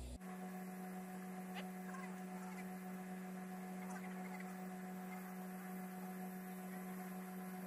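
Steady electrical hum of a TIG (GTAW) welding arc laying a root pass on a steel pipe joint, with a few faint ticks.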